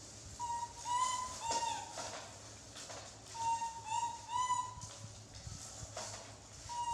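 An animal's short, high, whistle-like calls, about seven in a few quick clusters, some rising and falling in pitch.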